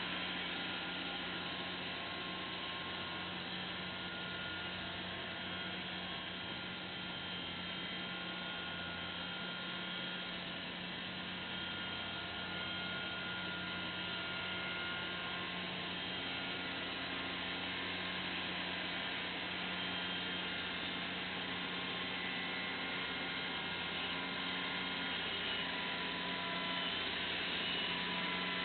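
Farm tractor engine running steadily while working the field, a constant low drone with a faint hiss over it.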